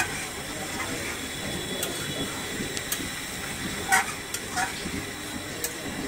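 Beef and potato curry simmering in a metal karahi with a steady bubbling hiss, the meat almost braised down, while a metal spoon stirs it and clinks against the pan a few times, loudest about four seconds in.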